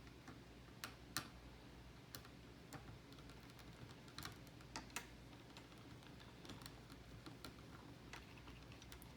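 Faint, irregular clicks and taps as CPU cooler mounting brackets are handled and fitted into place, over a low steady hum.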